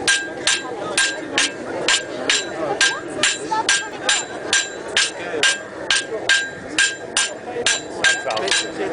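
Blacksmith's hammer striking metal on an anvil in a steady rhythm, about two blows a second, each blow ringing briefly.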